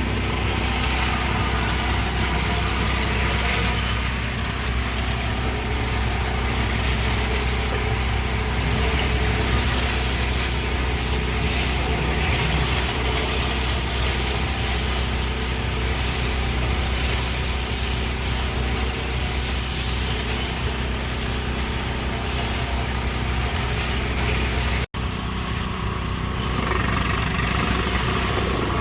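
Hot-water pressure washer running steadily: an engine's even drone under the hiss of the high-pressure spray. The sound breaks off for an instant near the end and then carries on unchanged.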